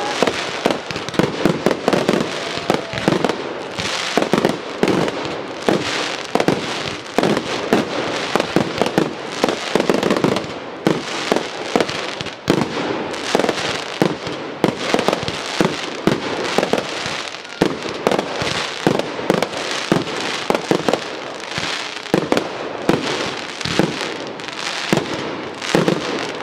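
Fireworks display: shells and cakes going off in a rapid, continuous barrage of bangs and crackle, several bursts a second.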